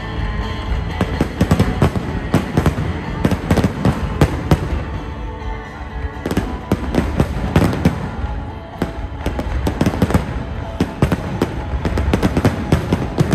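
Fireworks display: a dense, continuous barrage of bangs and crackling bursts, with the show's music playing underneath. The barrage thins briefly around the middle and builds again toward the end.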